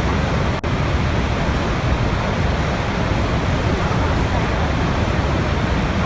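Steady rush of a large waterfall, heaviest in the low end, with a brief dropout just over half a second in.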